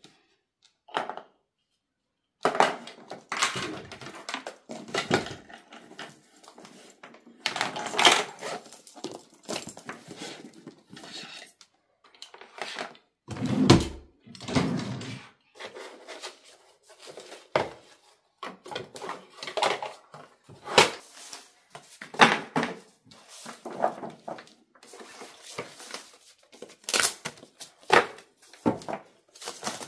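Irregular knocks, clatters and rustling in a small room, with a brief pause near the start and a few louder thumps around the middle.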